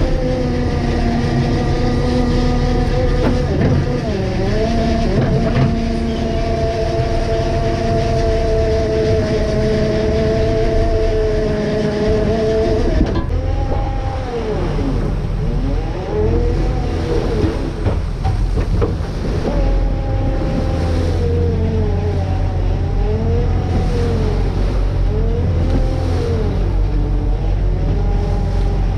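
Fishing boat's engine and hydraulic machinery running, a steady many-toned hum over the rush of the sea. About halfway through the sound changes abruptly and the hum's pitch then rises and falls again and again.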